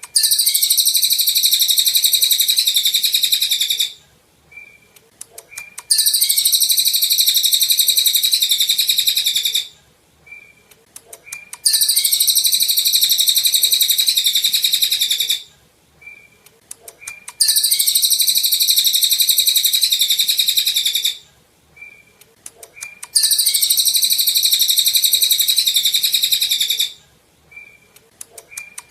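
Cililin songbird singing loud, dense, high-pitched rapid trills in bouts of about four seconds, a new bout starting every six seconds or so, with a few short chirps in the pauses.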